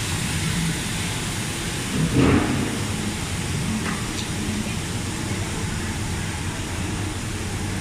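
Steady din of woodworking factory machinery and dust extraction, with a brief louder clatter about two seconds in.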